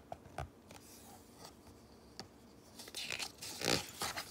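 A picture-book page being turned by hand: a small tick of handling near the start, then a rustling swish of paper from about three seconds in.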